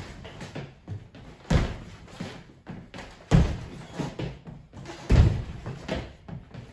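Two people's sneakered feet striking a hardwood floor during fencing footwork: three heavy landings, about one every two seconds, with lighter footfalls between them.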